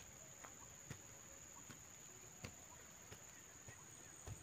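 Near silence, broken by a few faint, scattered taps and scrapes of a small hand tool digging in soil, over a steady high-pitched whine.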